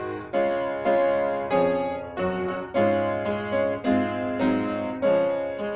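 Intro music on a keyboard: a melody of struck notes and chords, about two a second, each ringing and fading.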